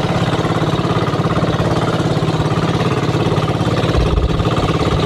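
Motor of a small outrigger boat (banca) running steadily under way, a fast even pulse of firing strokes, over a steady rush of wind and water.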